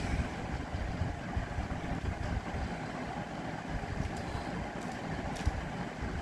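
Steady low rumble of background noise, with a few light clicks from the second half on as a Pyraminx puzzle is turned in the hands.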